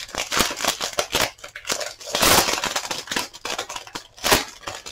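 Plastic shrink-wrap being pulled and torn off an eyeshadow palette: a run of sharp crinkles and crackles, with louder rustles about two seconds in and again near the end.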